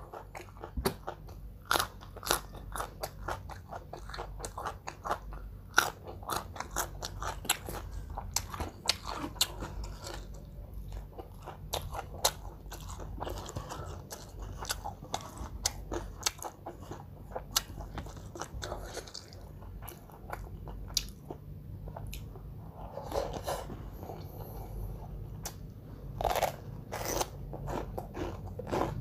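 A person biting and chewing crunchy food, with many sharp crunches coming thick and fast throughout.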